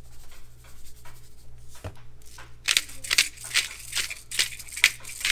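Hand pepper mill grinding black pepper onto fish fillets in a quick run of short, gritty crunching strokes, starting about two and a half seconds in. Before that there are only soft rustles and taps of salt being sprinkled by hand.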